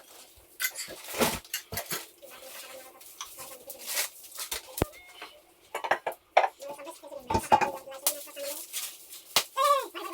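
Metal pots and cooking utensils clinking and knocking in irregular strikes while food is being prepared.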